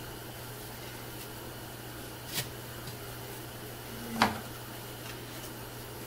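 Handling noise as lace is knotted onto a painted wooden door hanger: two short knocks about two seconds apart, the second the louder, over a steady low hum.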